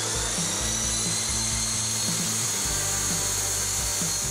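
Abrasive chop saw cutting through 1/8-inch steel angle iron: a steady, high, multi-tone whine as the spinning cutoff wheel grinds into the steel.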